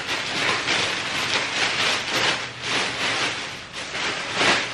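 Green plastic air-pillow packing rustling and crinkling as it is pulled out of a cardboard box in handfuls, in repeated swells.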